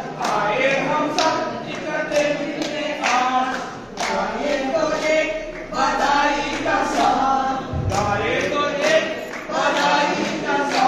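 A group of women singing a traditional wedding ritual song together, several voices in unison with held, wavering notes.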